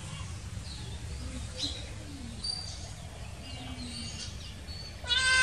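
Small birds chirping now and then over a low steady hum, then a cat lets out a loud meow near the end.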